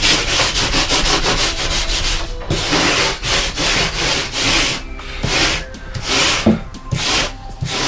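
Hand rasp filing the edge of a foam-polystyrene insulation board, rubbed back and forth in quick strokes, about three to four a second at first, then more unevenly with short pauses.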